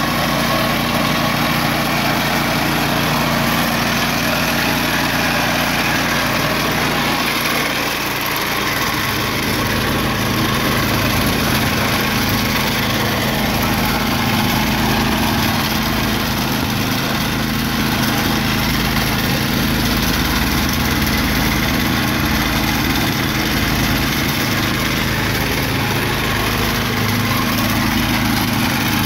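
Ryan walk-behind sod cutter's small gasoline engine running steadily. From about nine seconds in its low rumble grows stronger and uneven.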